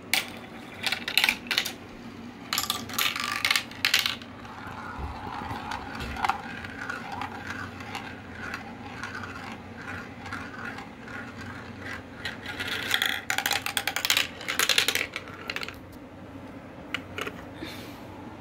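A glass marble running through a translucent plastic marble run: clattering and clicking in bursts as it drops through the tubes and pieces, with a long steady rolling whirr in between while it circles a plastic funnel.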